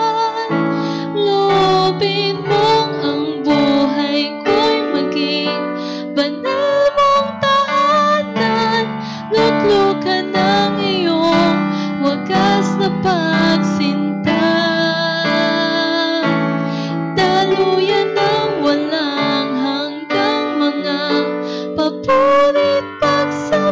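A woman singing a Tagalog worship song into a microphone, accompanied by a Yamaha electronic keyboard playing piano chords.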